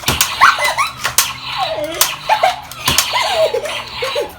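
A Star Wars Nerf toy blaster firing, a few sharp clicks about a second apart, amid high squeals that slide up and down.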